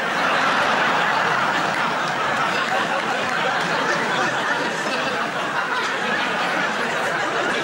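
Studio audience laughing, loud and sustained, easing slightly near the end.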